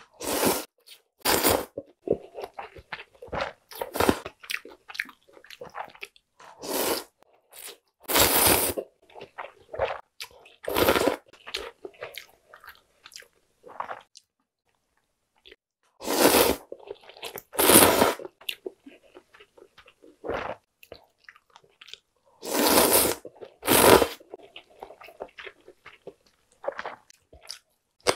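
Close-miked eating: buckwheat soba noodles slurped from cold broth in loud half-second bursts, about ten times, with quieter chewing between and a brief pause about halfway through.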